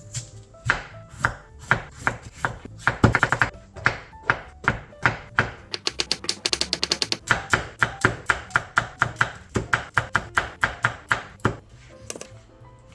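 Kitchen knife chopping vegetables on a cutting board: a series of sharp knocks, irregular at first, then a fast even run of several chops a second through the middle, stopping shortly before the end. Quiet background music plays underneath.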